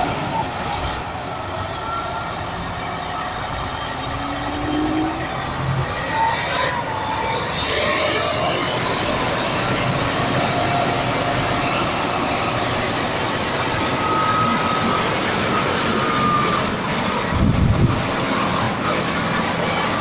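2002 Komatsu D65P crawler bulldozer's diesel engine running steadily as the machine moves, with a brief louder burst about three-quarters of the way through.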